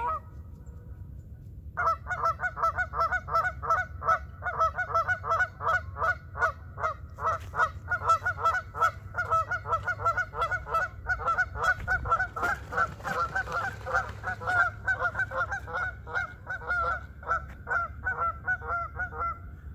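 A flock of geese honking, starting about two seconds in: many overlapping calls several times a second, kept up without a break.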